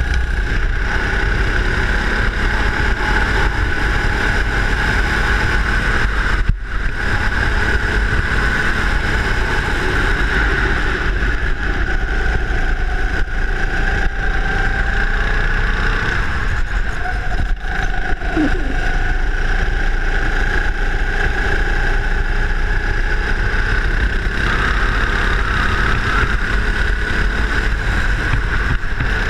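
Go-kart engine running at speed, heard from on board the kart, its pitch drifting up and down a little with the revs. The sound dips briefly about six and a half seconds in and again near eighteen seconds.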